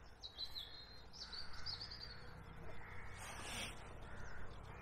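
Faint outdoor birdsong: a quick run of high chirps in the first two seconds, then a brief louder noise about three seconds in, over a quiet low background.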